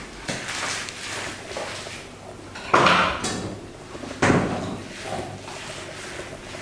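A roller pushed back and forth across a flat surface, making a series of swishing strokes; the two loudest start suddenly about three and four and a quarter seconds in.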